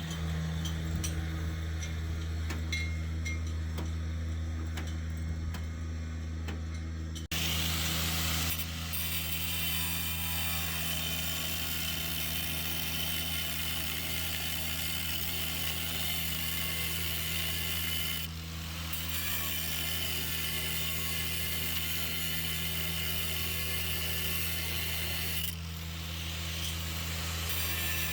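Mechanical workshop sound: a steady low machine hum with tool noises over it. About seven seconds in it breaks off sharply and comes back fuller and busier.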